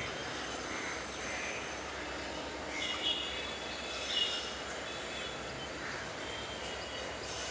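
Steady low running of a WDP-4D diesel-electric locomotive approaching slowly under a caution, hauling a passenger train. Birds call briefly twice, about three and four seconds in.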